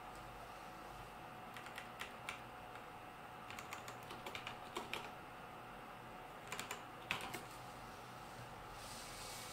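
Computer keyboard typing in three short bursts of key clicks, over a faint steady hum.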